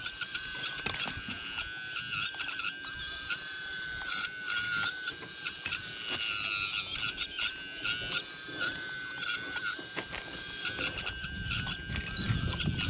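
RC excavator's hydraulic pump motor running with a steady high whine that dips briefly again and again as the controls are worked, with squeaking and clicking from the machine. Near the end a low, rough scraping noise comes in.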